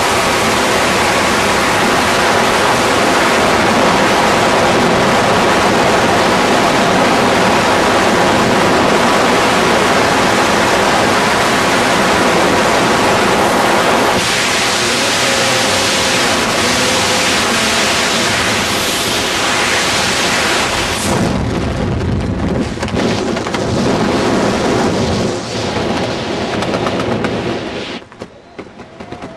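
Freefall wind rushing and buffeting over the camera microphone in a skydive: a loud, steady rush of noise. About two-thirds of the way in it turns gustier and loses its hiss, and near the end it drops off sharply as the fall slows.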